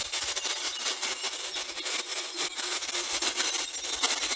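Battery-powered Saker mini electric chainsaw cutting through a log, its chain running steadily through the wood.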